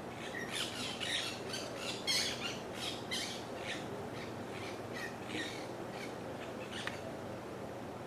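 Birds calling in a quick run of short, harsh squawks, about three a second, thinning out to a few scattered calls after about five seconds.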